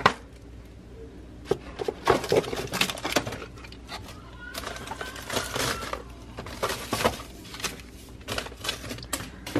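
Irregular knocks, clatter and rustling of assorted kitchen clutter (plastic trays, disc cases, small boxes) being taken off a cabinet shelf and set down on a pile.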